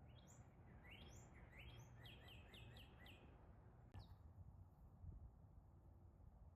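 A songbird singing a quick run of about ten clear notes, each sliding downward, for about three seconds, then one more note a second later. A faint low wind rumble lies underneath.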